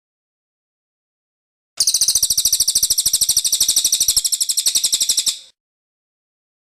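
Cililin songbird singing: one fast, high-pitched trill of rapidly repeated notes, about a dozen a second, starting about two seconds in and lasting about three and a half seconds.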